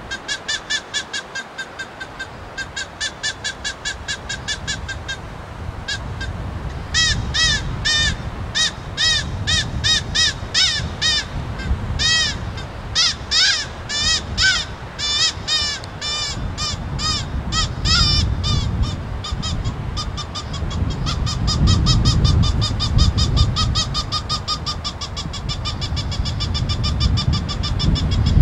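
Hand-blown fox whistle calling in rapid, repeated squeals, several a second, rising and falling in pitch, imitating a rabbit in distress to draw in a fox. The squeals are loudest through the middle.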